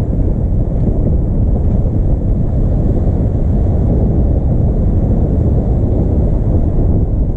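Loud, steady low rumble of wind buffeting the microphone, over the running of the Volvo 65's engine with the sails down.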